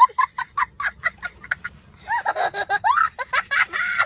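A young child laughing in quick, high-pitched bursts, about five or six a second, turning into longer squealing vocal sounds about halfway through.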